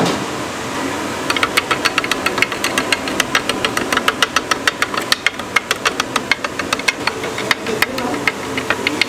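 A rapid run of sharp knocks, about six a second, starting about a second in and thinning out near the end, over a steady fan-like hum.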